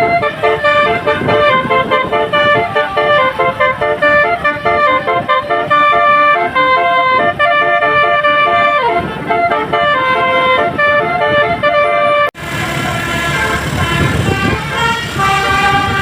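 Basuri 'telolet' multi-tone bus horn playing a fast melody, its notes changing pitch several times a second. About twelve seconds in it cuts off abruptly and another horn tune starts, with street noise under it.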